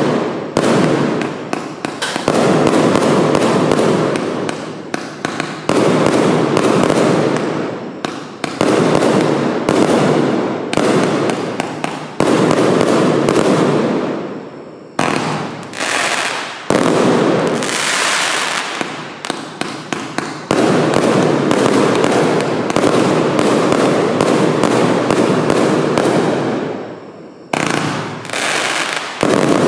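A Lesli Signature Show fireworks compound cake (25 mm calibre, 216 shots) firing rapid salvos, a dense run of sharp shots and bursts with crackle, broken by brief pauses about halfway and near the end.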